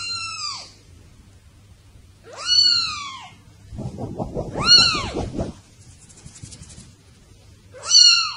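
Very young kitten mewing four times: thin, high-pitched calls that each rise and then fall. A rustle comes around the third call.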